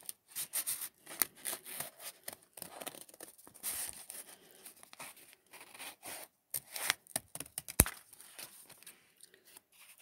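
Metal scissors cutting through several layers of accordion-folded paper in short, irregular snips, with one sharp click about eight seconds in.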